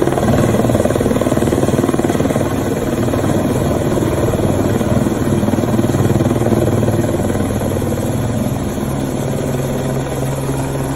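Helicopter running overhead, loud and steady, easing a little near the end as it climbs away.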